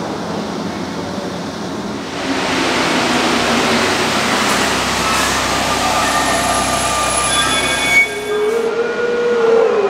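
Rubber-tyred Paris Métro line 4 train running along the platform. Its noise swells about two seconds in, with high thin tones from the running gear, and a wavering whine comes in near the end.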